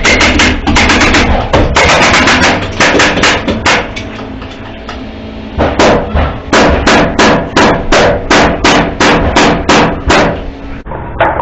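Hammer driving nails into framing lumber: a quick run of strikes, a pause of about a second and a half, then a steady series of about three blows a second that stops shortly before the end.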